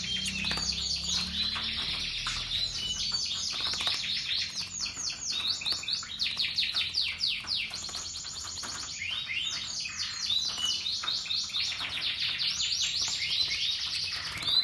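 A chorus of small songbirds chirping and trilling without a break: rapid, high notes that sweep downward, from several birds at once.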